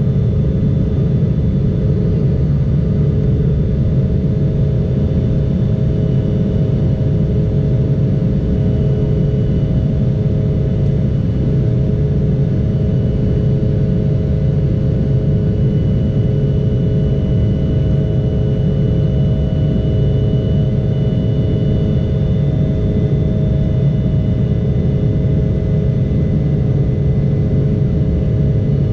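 Steady jet cabin noise inside an Embraer 175 in its climb after takeoff: the low rumble of the General Electric CF34-8E turbofans and the airflow, with a few steady hum tones over it and a faint high whine partway through.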